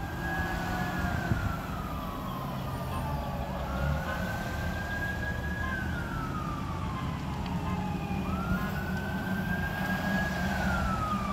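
Fire engine siren wailing over passing road traffic. Each cycle rises quickly, holds high for a second or two, then falls slowly, repeating about every four seconds.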